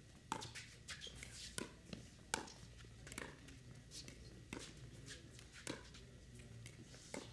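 Pickleball paddles striking a plastic ball back and forth in a rally: a string of sharp pops at uneven intervals, roughly one a second.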